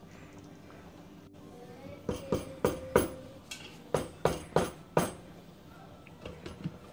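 Wooden spoon stirring a thick meat sauce and knocking against the side of a skillet, about ten sharp knocks, then a few lighter clicks near the end as a glass lid is set on the pan.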